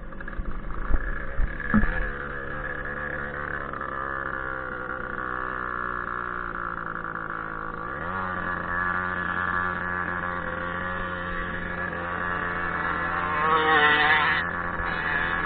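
Motorcycle engine running under way on the rider's own bike, with a few knocks in the first two seconds and its pitch rising about eight seconds in, then holding steady. Near the end another motorcycle comes close and is briefly louder.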